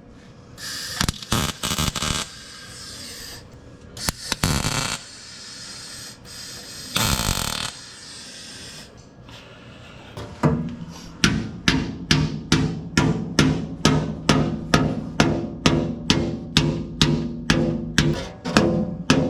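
A few short bursts of hissing noise, each about a second long, then background music with a steady drum beat of about two beats a second that starts about halfway through.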